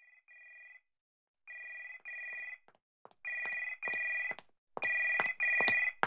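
Telephone ringing in double rings, an electronic two-tone trill repeated four times and getting louder with each ring.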